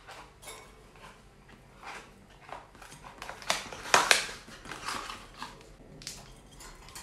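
A small cardboard box being pried and torn open by hand, with irregular crackles and rustles and the loudest tearing about four seconds in. Near the end, a plastic-wrapped bath bomb crinkles as it is handled.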